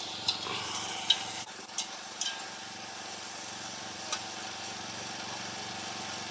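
Pot of francolin broth cooking over a fire, with about five light clicks in the first half and a steady low hum underneath.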